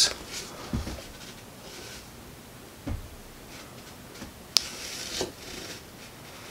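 Light crinkling and handling of a plastic protein-bar wrapper held and turned in the hand, with two soft thuds and a sharp click about four and a half seconds in.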